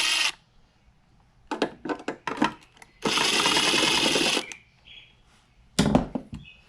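Cordless power drill/driver spinning bolts out of a metal cover plate in a steady burst of about a second and a half, with small clicks of handling in between and a sharp clunk near the end.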